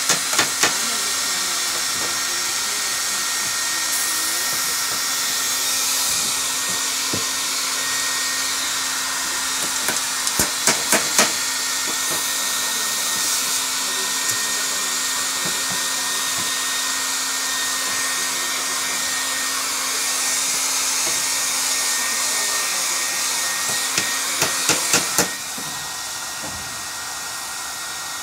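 Steady hissing noise with three short runs of rapid, sharp clicks, four or five at a time: spray paint cans being shaken, their mixing balls rattling. The hiss drops in level about twenty-five seconds in.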